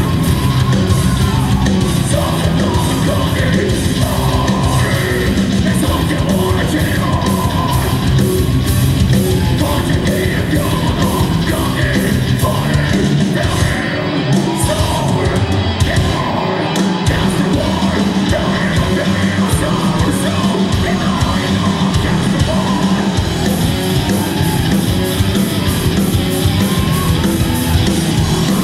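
Heavy metal band playing live on stage: electric guitars, bass, fast drums and a vocalist. Twice, about halfway through, the bass and drums drop out briefly.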